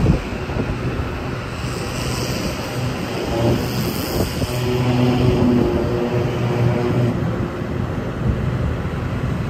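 Hitachi ZX300 excavator's Isuzu diesel engine running steadily with its hydraulics working the boom and dipper arm, a hydraulic whine standing out in the middle stretch.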